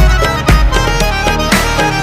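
Instrumental break of a Hindi film song, played loud through a Zebronics sound bar: a violin-like melody over heavy bass drum hits about half a second apart.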